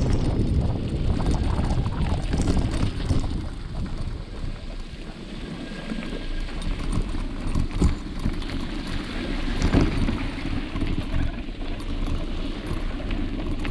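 Mountain bike ride noise picked up by an on-board camera: tyres rolling over a dirt and gravel track with rattling knocks from bumps, and wind buffeting the microphone.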